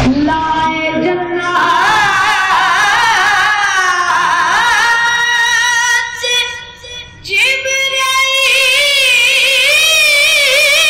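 A boy's high solo voice chanting a naat, devotional verse in praise of the Prophet, with long held notes and wavering ornaments. The voice breaks off briefly about six seconds in, then comes back on a long held note.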